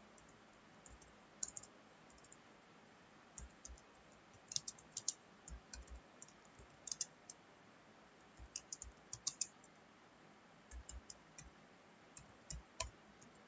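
Faint computer keyboard keystrokes clicking in short, irregular runs as text is typed.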